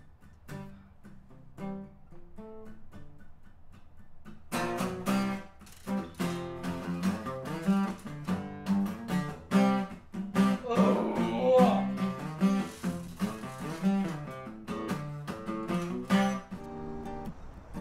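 Acoustic guitar playing: quiet single notes at first, then louder strummed chords from about four and a half seconds in.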